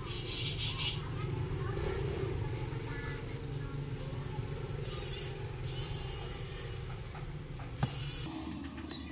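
Hands working on a phone: a brief scraping rustle of the plastic back cover near the start, then light scrapes and a sharp click of a screwdriver on the midframe screws, over a steady low hum.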